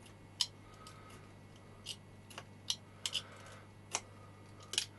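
A knife tip chipping and scraping a brittle, glass-like film out of an aluminium strip: irregular sharp clicks and ticks, about a dozen, over a low steady hum.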